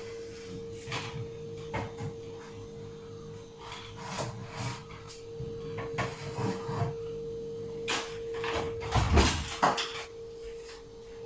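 Kitchen handling sounds: scattered clicks and knocks of containers, plates and utensils being picked up and set down, with a heavier clatter and thump about nine seconds in. A steady faint hum runs underneath.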